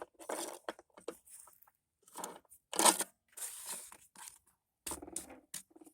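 Wood chipper's air filter cover being handled and fitted back on: a series of short scraping, rustling handling noises, the loudest about three seconds in.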